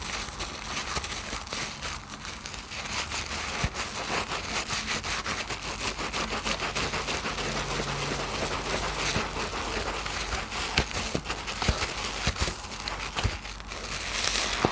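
Soap being lathered in thick soapy foam: a dense, wet crackling with many small sharp pops throughout.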